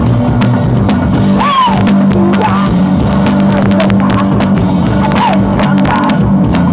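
Live punk blues rock from a guitar-and-drums duo: an electric guitar holds a steady low note over hard-hit drums and cymbals, loud throughout, with a few short rising and falling vocal cries over the top.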